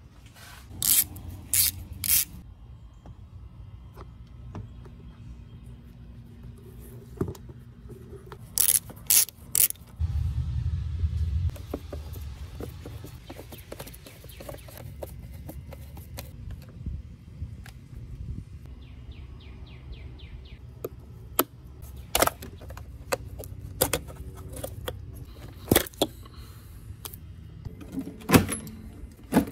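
Hand disassembly of a car's plastic intake air duct: a series of sharp plastic clicks and snaps, some in quick groups of three, a screwdriver loosening the duct's hose clamp, and a short low rumble about ten seconds in.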